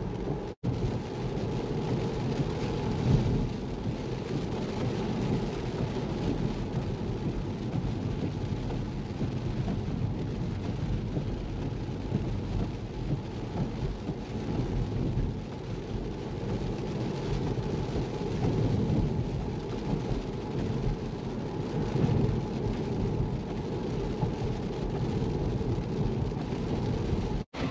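Steady tyre and road noise from a Tesla electric car driving on a wet road, heard from inside the cabin, a low rumble with a hiss of spray and rain and no engine sound. It drops out briefly about half a second in and again near the end.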